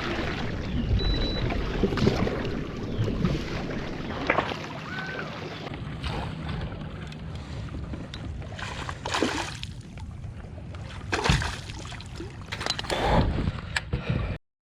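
Water and hull sounds from a kayak while a bass is fought and brought aboard: a steady wash with several brief splashes, and wind on the microphone. The sound cuts off abruptly near the end.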